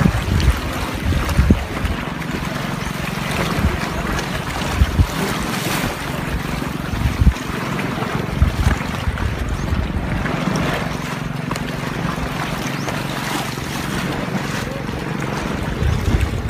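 Wind buffeting the microphone over sea water washing against a rocky shoreline, with a low steady drone underneath.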